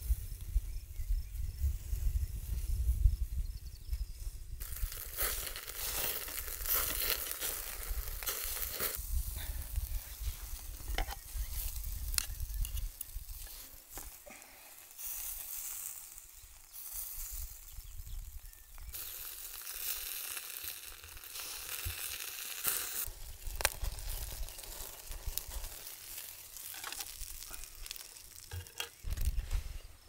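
Meat sizzling in a small grill basket over a wood campfire, a steady high hiss that comes and goes in long stretches, with scattered sharp crackles. For the first few seconds wind rumbles on the microphone.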